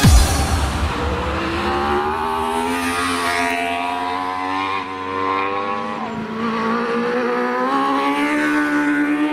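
Sport motorcycle engine running at high revs as the bike rides through a corner, its pitch dipping briefly twice near the middle and then climbing steadily toward the end. A brief loud thump at the very start.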